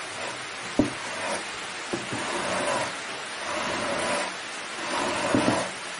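Rustling and rubbing of wool roving being handled on a wooden workbench, coming in several swelling rushes, with two sharp knocks in the first two seconds.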